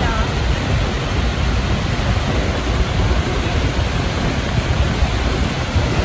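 Steady, unbroken rush of a waterfall.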